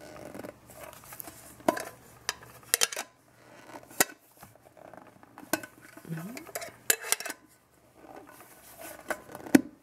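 Red telephone-box tea tin being handled and turned over in the hands: a string of sharp metallic clicks and taps, the loudest one near the end.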